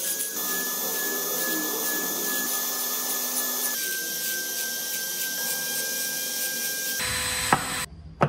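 Handheld rotary engraving tool running with a steady high whine as its bit cuts tread grooves into a wooden wheel; the pitch drops slightly about four seconds in. Near the end the whine gives way to a low rumble and a single sharp click.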